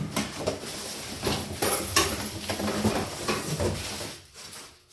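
Packing material and loose parts being pulled out of a shipping crate by hand: a continuous rustling with repeated clinks and knocks, dying away about four seconds in.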